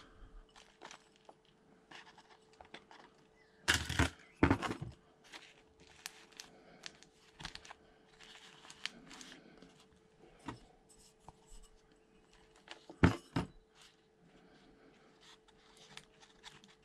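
Hands working potting soil around seedlings in thin black plastic cell trays: scattered soft soil rustles and small plastic clicks and crackles, with louder bursts of crackling as the tray is handled about four seconds in and again near the thirteen-second mark.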